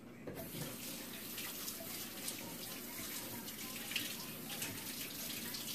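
Kitchen tap turned on just after the start and running into the sink as an even rush of water.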